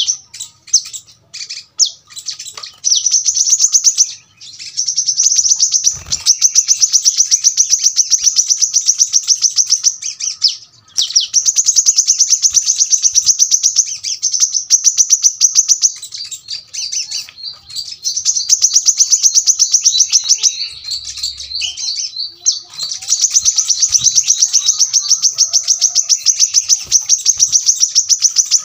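Brown-throated sunbird singing long, fast runs of tightly packed high notes, several seconds at a time with brief pauses between.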